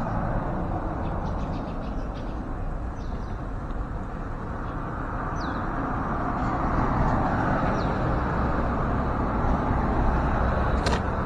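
Steady rumbling outdoor background noise that grows louder about halfway through, with a few faint, short high bird chirps over it.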